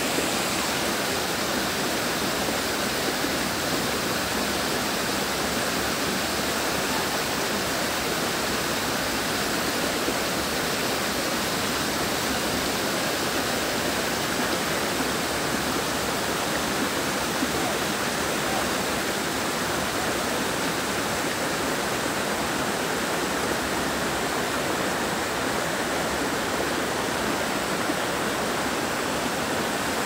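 Water rushing over and between boulders in a rocky stream: a steady, even rush with no change in level.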